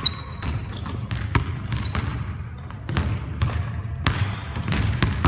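Basketball bouncing on a hardwood gym floor as a player dribbles, the bounces coming at uneven spacing. Short high sneaker squeaks on the floor come near the start and again about two seconds in.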